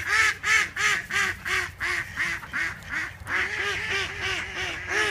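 Domestic ducks quacking in a fast, unbroken series of calls, about three a second. From about three seconds in, the quacks come closer together and overlap.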